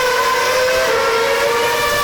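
Formula One car's 2.4-litre V8 engine running at high revs with a steady, high-pitched note that steps down slightly about a second in.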